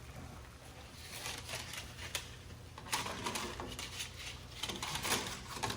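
Dry lasagna noodles being handled and slid into a pot of boiling water: a few faint, light clicks and rustles in scattered clusters.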